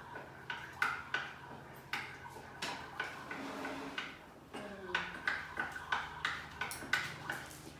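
A utensil knocking and clinking against a mixing bowl in short, irregular clicks while softened butter is stirred or beaten for icing.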